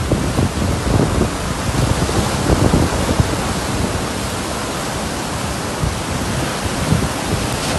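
Storm-force wind buffeting the microphone over heavy surf breaking on a rocky shore: a dense, continuous rush of noise with irregular low gusts.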